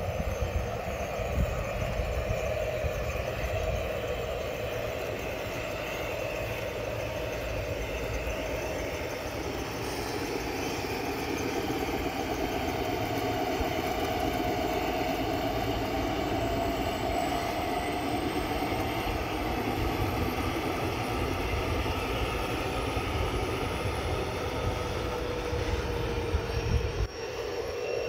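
G scale model freight train running along an elevated garden-railway track, a steady rumble of the diesel locomotive and its hopper cars rolling on the rails.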